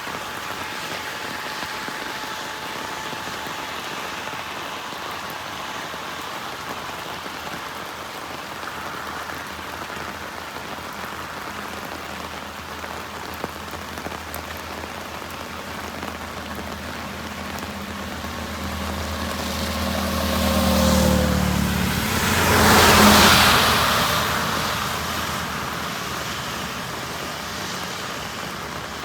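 Heavy monsoon rain falling steadily on a highway. About two-thirds of the way through, a truck passes: its engine hum swells, its tyres hiss loudly through the water on the road, peaking twice, and the sound then fades back into the rain.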